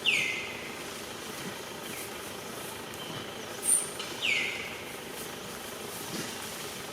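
An animal calling twice, about four seconds apart, each call a short high cry sliding down in pitch, with a brief very high chirp just before the second.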